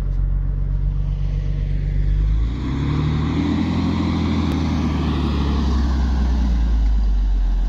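Engine of a truck-mounted cable-tool drilling rig running, then revving up and labouring under load from about two and a half seconds in as the truck tries to pull out of the soft sand it is stuck in.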